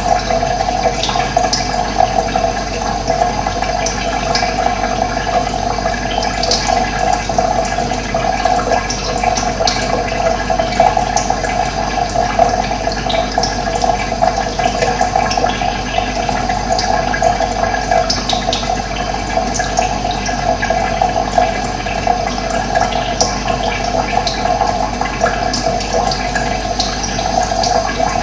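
Running water, a steady continuous rush.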